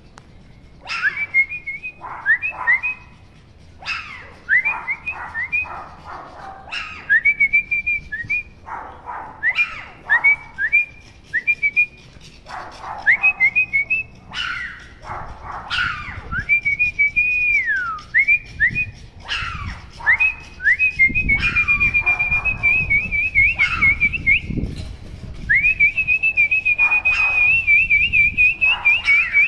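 Puppies whining: repeated short, high-pitched whimpers that rise and then hold, in twos and threes, with longer wavering whines in the second half.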